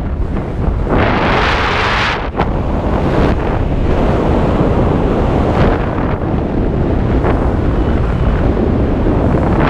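Freefall wind rushing over a helmet camera's microphone, a loud steady rush that eases briefly a couple of times as the skydiver's body position shifts.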